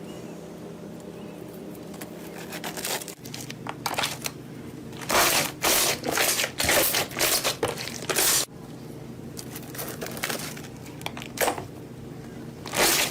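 Slime being squeezed and pressed by hand, giving irregular bursts of sharp crackling noise that bunch together in the middle and again near the end. A low steady hum comes before the first crackles.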